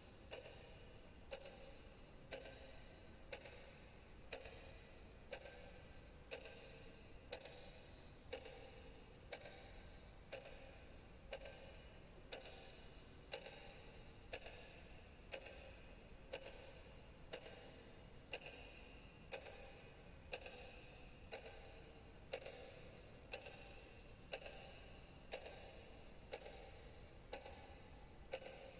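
Faint, clock-like ticking, steady at about one tick a second.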